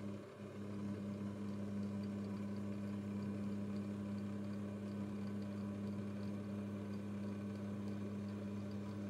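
Milling machine spindle running steadily with a low, even hum while a 1/8-inch end mill cuts a slot along a thin-walled aluminum tube, with faint light ticking over the hum.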